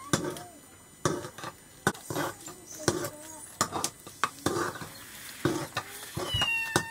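A long wooden stick stirring a thick mash in a metal cooking pot: knocks and scrapes against the pot about once a second, each with a wet slap from the thick food. A short high cry comes near the end.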